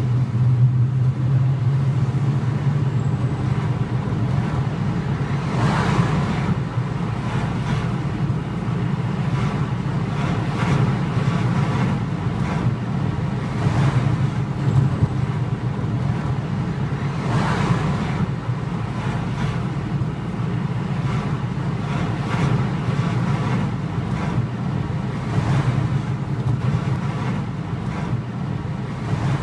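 Steady road and engine rumble of a car heard from inside the cabin while driving, with a swell of noise every few seconds, like passing vehicles or tyre noise.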